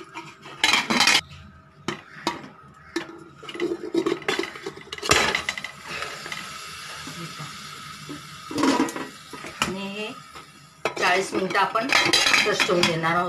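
Aluminium pressure cooker and cake tin knocking and scraping as the tin goes into the cooker and the lid is handled, with one louder clank about five seconds in. A steady hiss follows for about three seconds.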